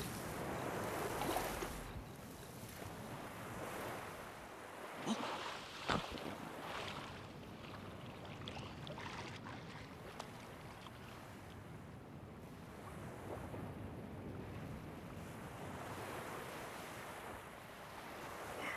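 Gentle ocean surf washing in and out steadily, with two short sharp sounds about five and six seconds in.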